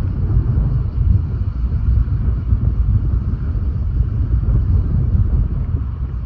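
Strong wind buffeting the microphone: a loud, steady low rumble that eases off right at the end.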